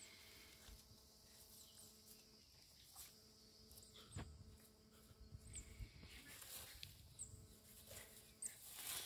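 Faint rustling of a small puppy pushing through weeds, with a soft knock about four seconds in and a few short, high chirps scattered throughout.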